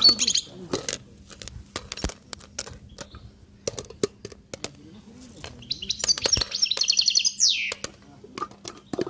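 A small songbird singing fast, high trills of chirps: briefly at the start, then for about a second and a half from six seconds in, ending in a quick falling sweep, and again at the very end. Scattered sharp clicks run throughout.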